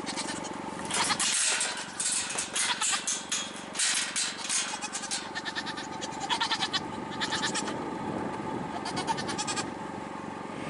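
Herded farm animals moving about: a run of short scuffing and rustling noises, with a faint bleat about six seconds in.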